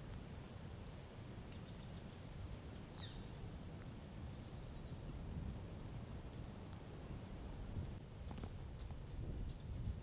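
Outdoor woodland ambience: small birds giving scattered short, high chirps over a low steady rumble.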